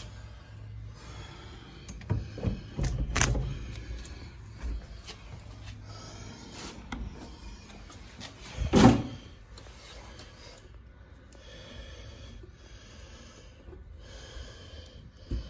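Metal push-bar of a fire door clunking as it is pushed, with a run of knocks about two to three seconds in and one loud bang of the door just under nine seconds in, then a last knock near the end.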